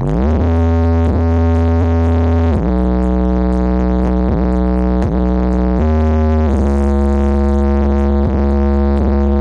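Electronic music with heavy, droning synthesizer bass played very loud through a large outdoor-cinema sound system. The held bass notes glide up at the start, then step down in pitch every few seconds, the bass strong enough to all but overload the microphone.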